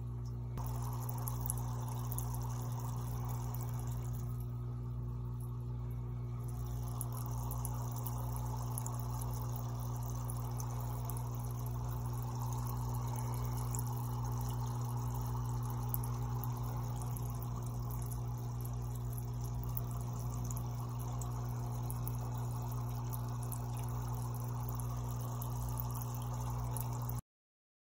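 Aquarium pump running with a steady low hum while water bubbles and splashes in the tank. The sound stops abruptly near the end.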